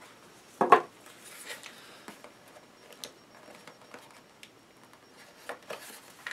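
A small cardboard box being opened and unpacked by hand: a sharp rustle-knock under a second in, then light scraping, rustling and clicking of the cardboard and its insert as the contents are slid out.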